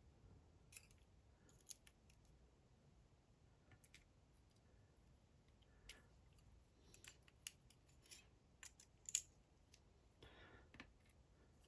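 Faint, scattered metallic clicks and ticks of small lock parts and a tool being handled while a dimple lock is disassembled, with a brief soft scrape near the end.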